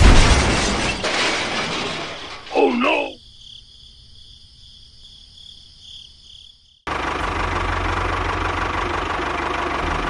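Toy train running into a sand mound, a loud rush of noise that fades over about two seconds, followed by a short wavering voice-like cry. About seven seconds in, a small toy motor starts abruptly and runs with a steady hum.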